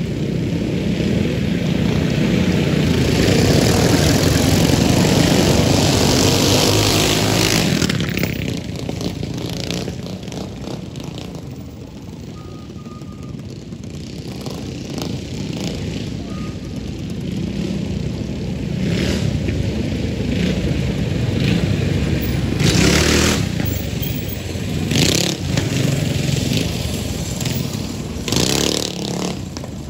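Small single-cylinder mini bike engines running hard, loudest in the first several seconds of a pass. After that they run lower, with several short sharp throttle blips near the end.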